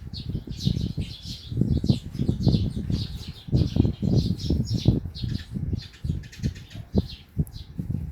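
Guinea pig chewing napier grass close up: rapid, irregular crunching and tearing of the stalks and leaves.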